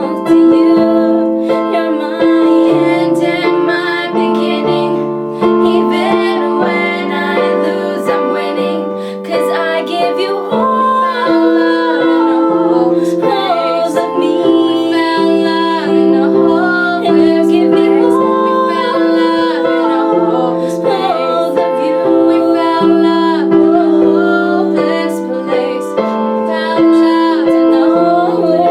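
Women singing a pop mashup to piano accompaniment: sustained keyboard chords under a melodic vocal line.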